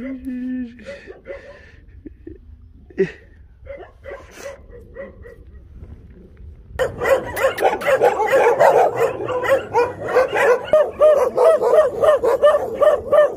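Several dogs barking together. The barking starts suddenly about seven seconds in after some quieter scattered sounds, and goes on with several barks a second.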